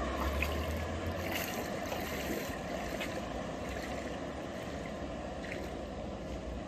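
70 mm electric ducted fan RC boat planing across open water at a distance: a steady rushing hiss of fan and spray, with a low rumble through the first two seconds or so.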